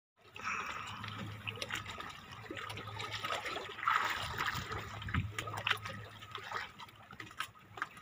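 Sea water lapping and splashing in small, irregular trickles and splashes, over a faint steady low hum.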